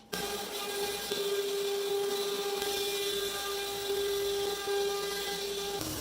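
Dust collection vacuum motor running with a steady whine and rush of air; near the end its pitch drops to a lower, steady note.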